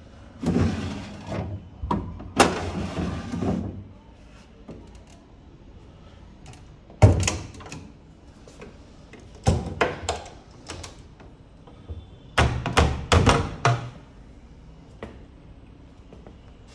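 Drawers and doors of a solid jacarandá wood sideboard being worked by hand: a wooden drawer slides out and back in with two scraping slides in the first few seconds, then cabinet doors are shut with a sharp knock and later two clusters of knocks and thuds.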